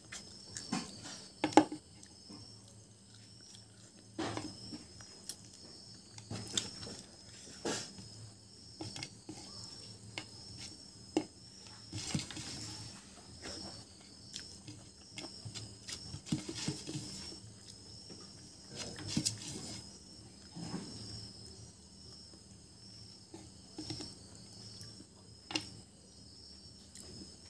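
Close-miked eating by hand: chewing and mouth sounds, with fingers mixing rice and fish curry on a plate, in scattered short clicks and squelches. Crickets chirp steadily in the background.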